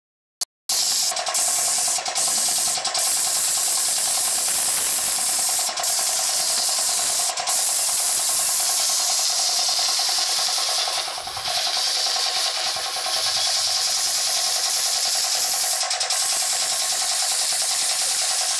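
Compressed-air paint spray gun hissing steadily as it sprays paint, with a steady hum running under the hiss. The sound drops out for a moment at the very start.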